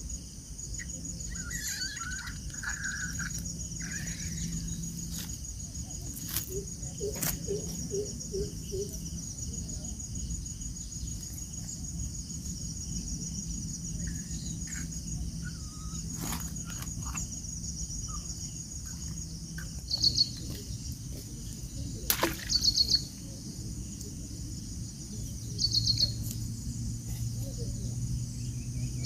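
Insects trilling steadily in a high pulsed buzz, with birds chirping now and then. Three short, loud chirping bursts come in the last third, and a few sharp knocks are scattered through.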